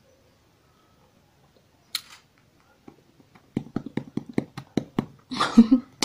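A sharp click about two seconds in, then a quick run of small clicks and knocks close to the microphone, about six a second, ending in a short rustle and one more click.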